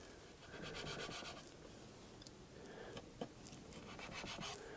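Kitchen knife cutting through a plum cake and its baked base on a wooden board: two spells of quick rasping, scratchy strokes, one about half a second in and another near the end, with a couple of light clicks between them.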